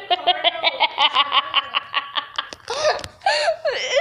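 A person laughing in a fast run of high-pitched giggles, breaking into longer, higher squeals of laughter about halfway through.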